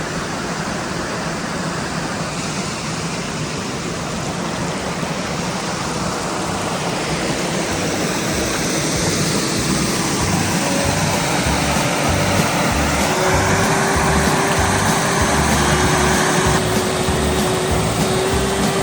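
Intro music building up: a swelling wash of sound, then a steady beat that comes in about halfway and grows louder.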